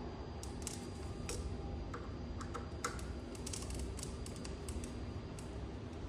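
Irregular light clicks and taps of tools and small parts being handled, coming in quick clusters through the middle, over a steady low hum.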